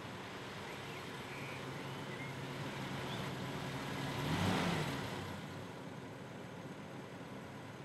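Steady road noise and low engine hum inside a moving vehicle, swelling to a peak about four and a half seconds in and then easing off.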